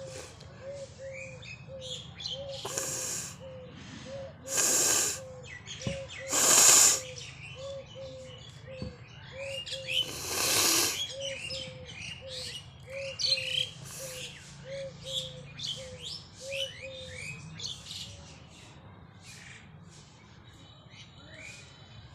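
Four loud, breathy bursts of air forced through a person's nose as she tries to sneeze; the two loudest come about five and seven seconds in. Behind them, birds chirp, and a bird's low note repeats about one and a half times a second until near the end.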